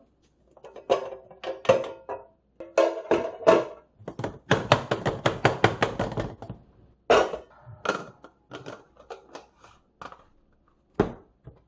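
Plastic food containers being handled and put away: a string of sharp clicks and knocks, with a fast, even clatter of about six ticks a second for a couple of seconds mid-way.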